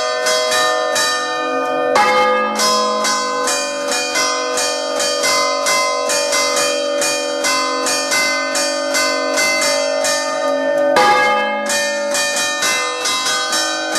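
Three church bells (G#3, C4, D#4) heard at close range in their bell chamber, ringing in the Umbrian 'rinterzo' style. The two smaller bells are struck in a rapid, rhythmic chime. The big bell, swung up and held mouth-upward, sounds a heavy stroke about two seconds in and again near the end.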